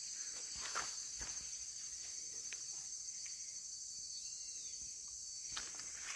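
Steady high-pitched drone of insects chirring, with a few faint light clicks.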